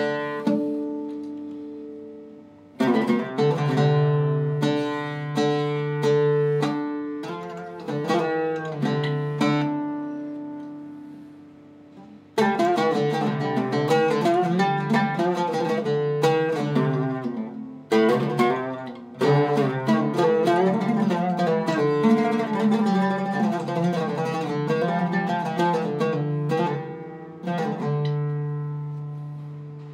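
Iraqi-style Zeryab oud with a cedar soundboard and Thomastik strings, plucked in phrases of ringing notes that fade away, with pauses about three and twelve seconds in, then a long run of quicker phrases. It is played across its registers to test the instrument's voice.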